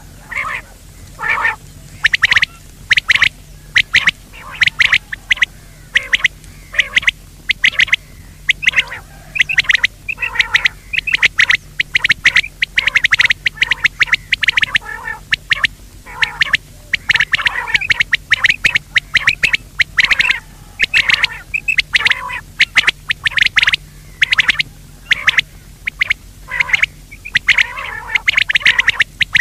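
Quail calling: rapid runs of short, sharp call notes, several a second, with brief pauses between runs. It is a loud recorded quail call of the kind played to lure wild quail into nets.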